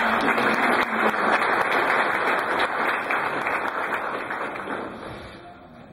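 Audience applauding, a dense patter of many hands clapping that slowly fades away over about five seconds.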